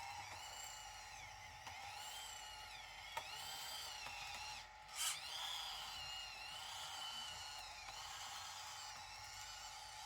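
Small electric motor and gearbox of a radio-controlled construction model whining, its pitch rising and falling as the throttle changes. A short click about three seconds in and a brief louder burst of noise about five seconds in.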